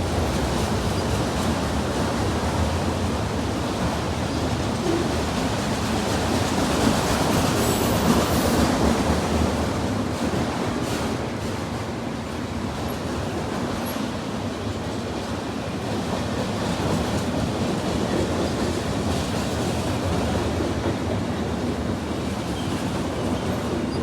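Freight train cars rolling past on the rails: a steady rumble with wheel clatter, a little louder about eight seconds in.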